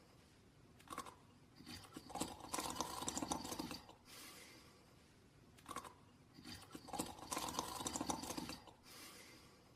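Snoring in sleep: two long snores about four seconds apart, each with a short sound about a second before it.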